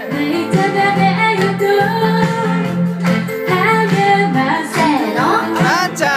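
Female idol group singing a pop song live into microphones over instrumental music, holding long notes with some sliding phrases.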